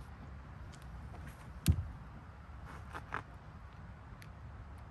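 One sharp click about a third of the way in, then a few softer clicks about a second later: small hardware being pressed and handled against a plastic kayak hull as rubber well nuts are fitted into drilled holes for a cheek block.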